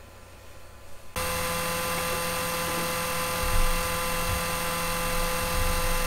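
Cooling fan on a Creality CR-6 3D printer's print head running with a steady hum of several fixed tones. It starts abruptly about a second in. With the nozzle clearly off the bed, this is the fan's higher, quieter tone, before the nozzle touches and the tone drops.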